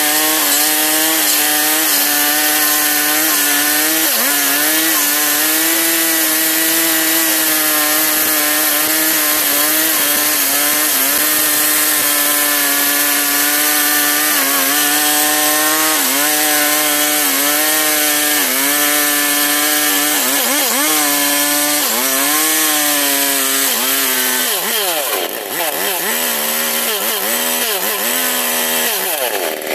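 Husqvarna 365 two-stroke chainsaw running at full throttle while cutting wood, its pitch dipping briefly now and then as the chain bites. Near the end the revs rise and fall quickly several times.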